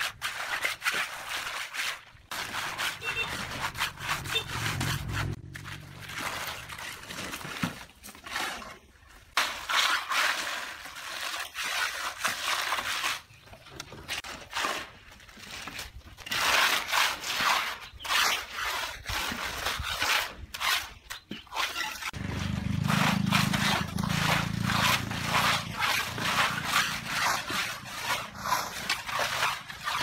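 Hand trowel scraping across wet, gravelly concrete in many short, irregular strokes as it spreads and smooths the fresh pour.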